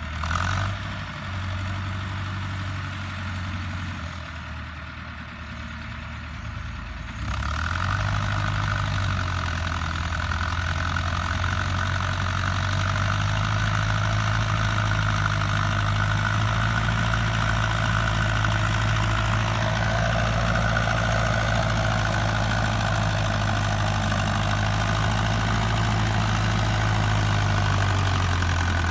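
Farmtrac 6055 tractor's diesel engine running steadily while it drives a rotavator through the soil. About seven seconds in it grows louder and a steady higher whine joins it.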